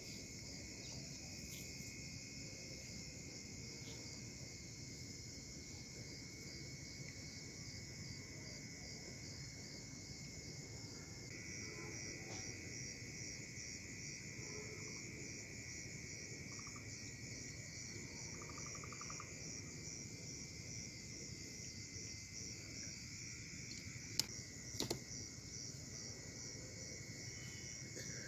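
Faint night chorus of crickets: a steady high trill that pulses evenly, over a lower continuous trill. Two sharp clicks about a second apart near the end.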